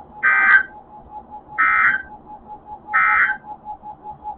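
NOAA Weather Radio SAME end-of-message data tones: three short, harsh digital warbling bursts about 1.3 seconds apart, the code that closes the tornado warning broadcast.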